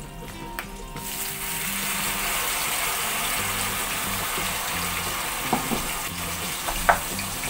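Wet ground paste hitting hot mustard oil in a non-stick kadai: the sizzle starts about a second in and goes on as a steady hiss. Two short clicks come near the end.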